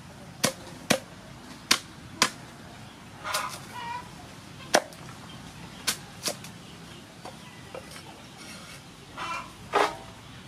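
Cleaver chopping water spinach stems on a round wooden chopping board: sharp, irregular knocks, about nine in all, with a lull in the middle. Two short pitched calls sound in the background, one a few seconds in and one near the end.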